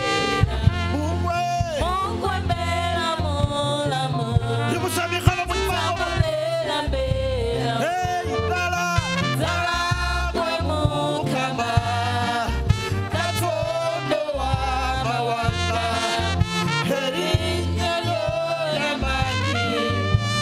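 Live church worship music: singers on microphones over a band with a pulsing bass line and steady drum hits.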